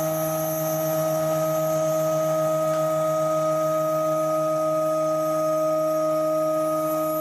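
DMC2 Mini desktop CNC milling 304 stainless steel with a 4 mm carbide end mill under coolant: the cut sings as one steady pitched tone with evenly spaced overtones that holds without a break.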